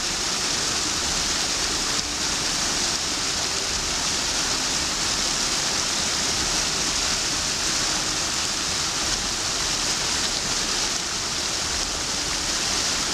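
Spring water rushing down small rocky cascades and through a fast stream: a steady, even rush of falling and splashing water.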